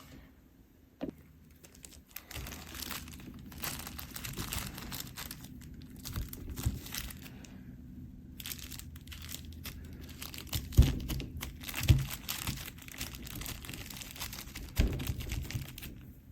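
Adhesive tape being pulled, torn and pressed down, a run of crinkling and tearing noises, with three sharp knocks in the second half.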